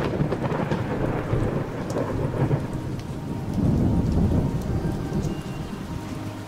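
Steady rain with rolling thunder, the thunder swelling to its loudest about three and a half seconds in.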